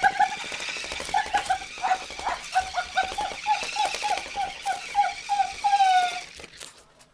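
Young puppy giving a quick series of short, high yips and whines, about three a second, while playing with a toy, ending in one longer drawn-out whine about six seconds in.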